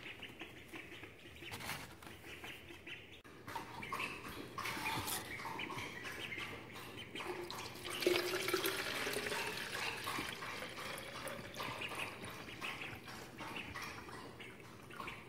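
Ducklings peeping, with liquid poured from a plastic jug into a plastic bottle. The pouring starts about eight seconds in and is the loudest sound from then on.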